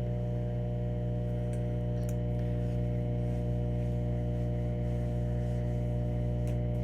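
Microwave oven running with a steady electrical hum while a bowl of eggs cooks inside, with a few faint ticks.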